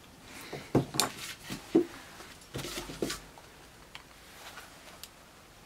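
Hand tools and an old electrical plug being handled at a wooden workbench, a screwdriver worked at the plug and a tool laid down on the bench: a run of clicks, scrapes and knocks through the first three seconds, the sharpest under a second and just under two seconds in, then only faint ticks.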